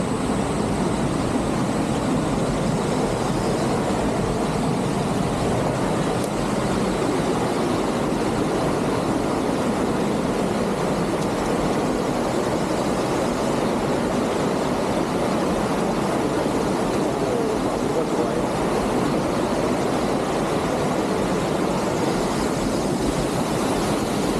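Steady rushing roar of water pouring over the rocks of a jungle waterfall and stream, unchanging throughout.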